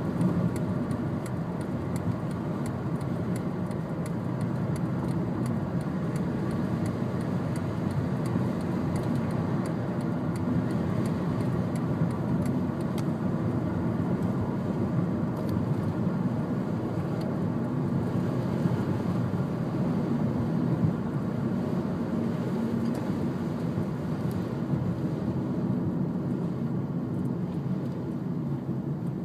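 Steady road and engine noise inside a moving car's cabin, with faint light ticks through the first half.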